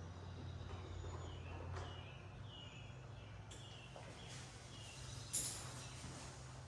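Faint steady low hum with a few faint, short bird chirps in the middle, and a brief clatter about five seconds in.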